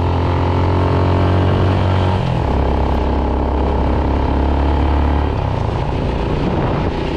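Motorcycle engine running steadily under way, its note shifting about two seconds in and again about five seconds in.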